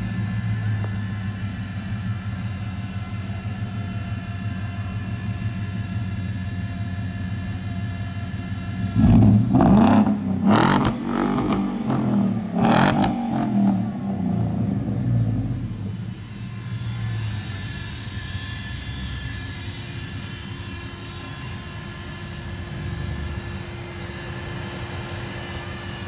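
Ford Coyote 5.0 DOHC V8, swapped into an older Ford pickup, idling steadily. About nine seconds in it is revved several times in quick succession for several seconds, then it settles back to idle.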